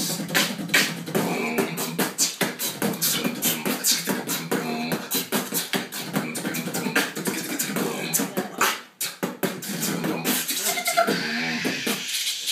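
Two beatboxers freestyling together: rapid mouth-made percussion of clicks, kicks and snares over pitched hummed tones.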